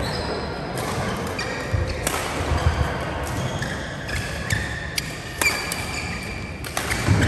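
Badminton play: sharp racket hits on the shuttlecock, a few seconds apart, with shoes squeaking on the court floor and the thud of footsteps.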